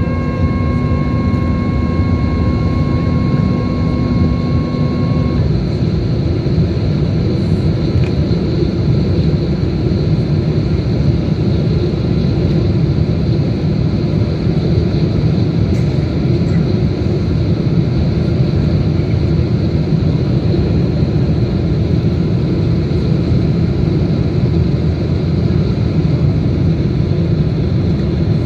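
Airbus A330-300 cabin noise on approach: a steady rush of airflow and its Rolls-Royce Trent 700 engines. For the first five seconds a steady whine from the flap drive extending the flaps runs alongside, then cuts off abruptly.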